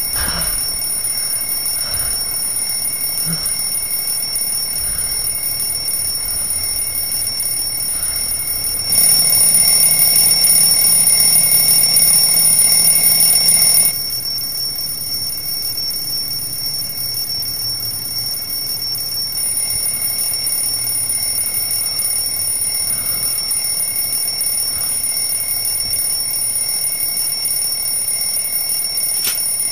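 Alarm clock ringing on and on in one unbroken high tone, louder and harsher for a stretch about nine to fourteen seconds in.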